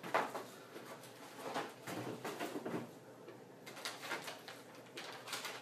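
Crinkling and rustling of a plastic stand-up pouch being handled, with a run of irregular light clicks.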